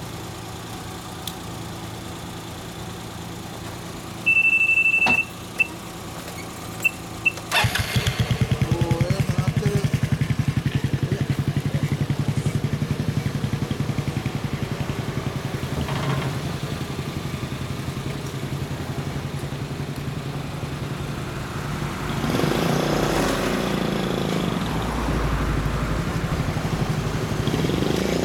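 A short, loud high-pitched beep about four seconds in, then the 2005 Honda Fusion scooter's 250 cc single-cylinder four-stroke engine starts about seven and a half seconds in and idles through its Real Speed aftermarket muffler with a steady pulsing exhaust note, growing louder about two-thirds of the way through.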